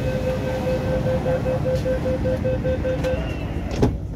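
Door-closing warning beeps of an MTR Q-train: a rapid run of short, even beeps, about four a second, lasting about three seconds, followed near the end by a thump as the doors shut. A low train rumble runs underneath.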